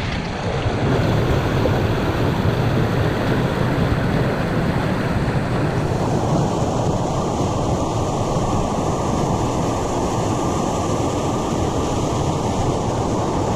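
Steady rush of fast-flowing water from a jungle waterfall and the strong current below it.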